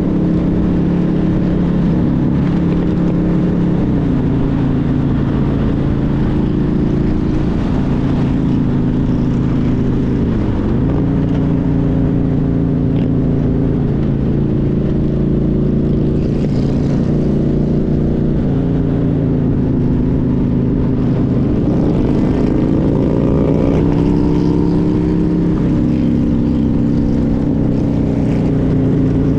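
A motorcycle engine running under way at road speed, its pitch dipping about ten seconds in and climbing again later as the throttle is eased and reopened, with wind noise on the microphone.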